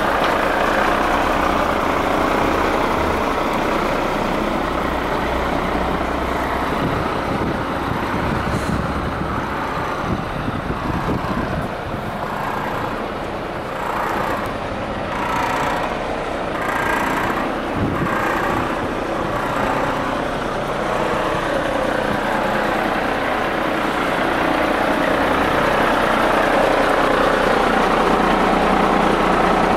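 MAN TGA 26.440 6x4 truck's straight-six diesel engine idling steadily, heard up close beside the chassis.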